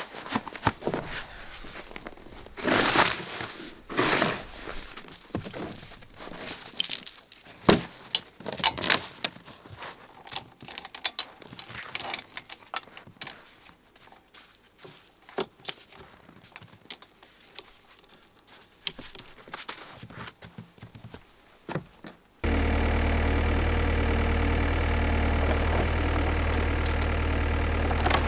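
A snow shovel scraping and scooping packed snow, then a steel chain clinking and knocking as it is hooked between a compact track loader's bucket and a trailer drawbar. About 22 seconds in, the loader's engine cuts in abruptly, idling steadily.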